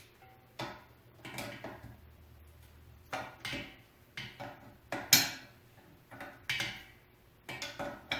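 Metal pipe fitting and tools clinking and tapping against the compressor pump as the Teflon-taped pipe is threaded back on: a string of irregular sharp metallic clicks and knocks, the loudest about five seconds in.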